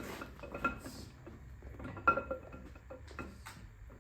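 Metal engine parts and tools clinking during an LS V8 teardown: about five sharp metallic clinks with a short ring, the loudest about two seconds in.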